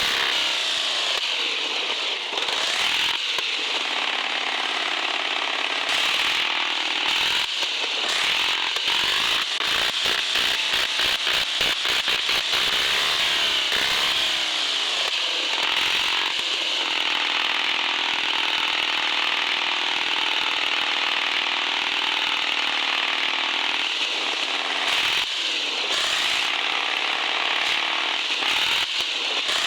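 Electric motor and gear drive of a radio-controlled 4x4 truck whining as it is driven through mud, the pitch rising and falling with the throttle, with rapid on-off throttle bursts in the middle.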